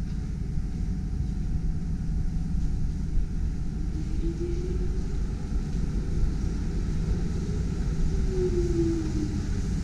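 TTC CLRV streetcar rolling in along the rails with a steady low rumble. A brief whine rises about four seconds in, and another falls away near the end as the car comes up to the platform.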